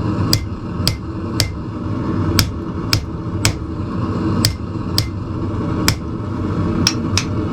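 Hammer blows on hot steel tong jaws against an anvil, about eleven strikes at roughly two a second with uneven gaps, each with a short metallic ring, as the tong head is forged to shape. A steady low rumble runs underneath.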